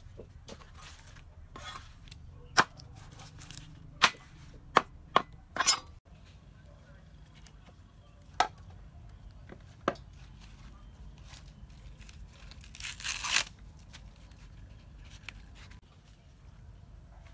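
Irregular sharp knocks, about seven spread over several seconds, like chopping or striking, then a short rasping tearing or rustling sound about thirteen seconds in.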